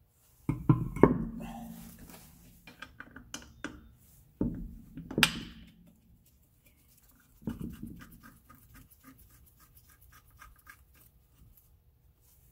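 Steel wheel being hung on the hub and its lug bolts threaded in by hand: several sharp metal clunks, a few with a brief ring. Then a run of quick, evenly spaced light clicks as a bolt is spun in.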